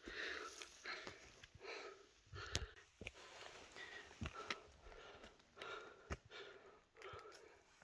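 A hiker breathing hard while climbing a steep mountain trail: quick, rhythmic puffs in and out, several to a second and a half, with a few dull low thumps in between.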